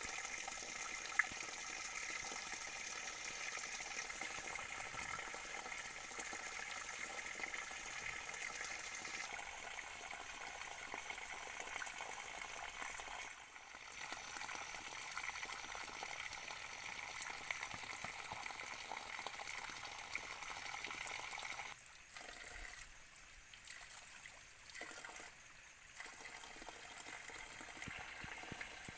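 Water trickling and running over rocks in a small mountain stream, a steady splashing hiss that changes abruptly a few times. One sharp click sounds about a second in.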